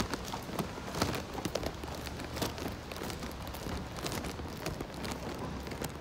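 Footsteps on a hard station floor, a run of irregular clicks and knocks, over a steady low hum.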